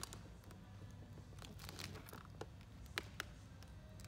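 Clear protective film being stretched and peeled off a wet painted motorcycle saddlebag lid: faint crinkling with a few sharp crackles in the second half, over a low steady hum.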